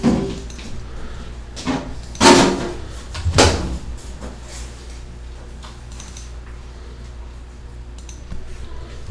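A few short knocks and rustles, the loudest about two and three and a half seconds in, over a steady low hum.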